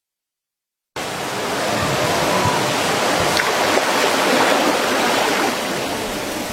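Silence, then about a second in a sudden start of loud, steady rushing water.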